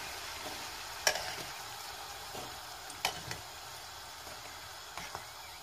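Hot oil sizzling steadily in a frying pan with pieces of pişi dough frying in it, broken by three sharp clicks about two seconds apart.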